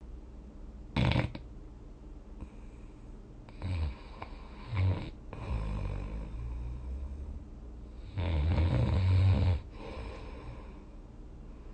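A person snoring in their sleep, in uneven breaths: a short, sharp snort about a second in, two shorter snores around four to five seconds, a low rumble, then a long, loud snore about eight seconds in.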